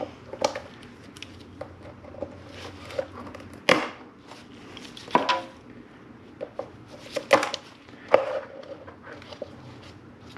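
An old, brittle valve cover gasket being picked and pried out of the groove of a VW VR6 valve cover by gloved hands. It gives irregular cracks, snaps and scrapes, the sharpest a little under four seconds in and again around seven to eight seconds. The gasket is so old and dried out that it shatters rather than peeling away.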